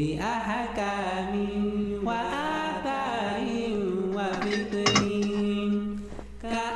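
Background music: a melodic sung or chanted vocal line over a steady low drone, with a few sharp percussive clicks about five seconds in.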